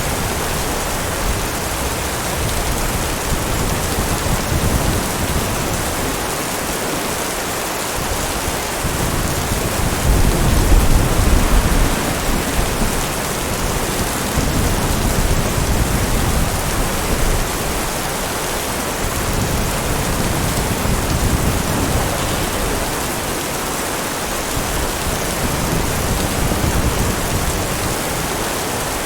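Heavy rain falling steadily, with low rumbles of thunder rising and fading; the loudest rumble comes about ten seconds in.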